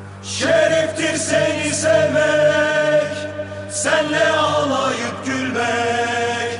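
Music: a choir of voices singing a Galatasaray football song in long held notes over a steady low drone, coming in about half a second in.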